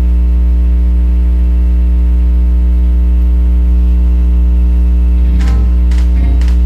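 Loud steady low hum with a stack of higher overtones. Several sharp percussive hits come in about five and a half seconds in as the backing music starts.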